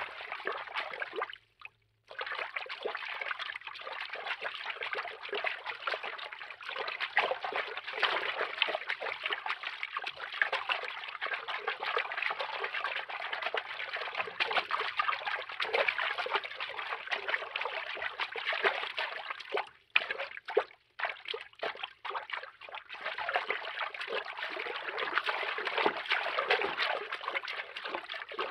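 Cartoon underwater water-movement foley: a continuous, busy watery texture with no deep rumble. It cuts out briefly a little over a second in, and flickers in and out a few times around twenty seconds in.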